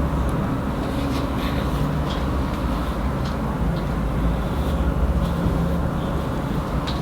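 Steady low rumble of a vehicle in motion, with small rattles and clicks now and then.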